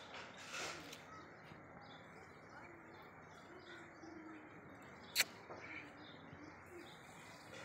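Faint outdoor background with birds chirping, a short rustle about half a second in, and one sharp click about five seconds in.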